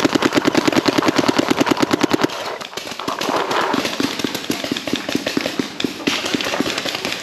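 Planet Eclipse ETHA 3 paintball marker firing a rapid string of shots, several a second, strongest and most even for about the first two seconds. The shots then carry on, a little less loudly, to the end.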